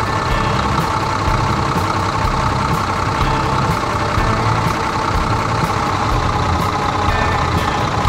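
Tractor engine sound effect running steadily: a continuous low rumble with a steady drone above it.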